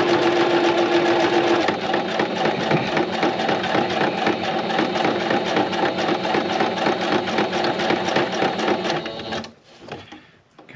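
Singer electric sewing machine running at speed, its needle stitching a decorative border through scrapbook paper in a fast steady patter. The motor note drops a little about two seconds in, and the machine stops suddenly near the end, followed by faint handling sounds.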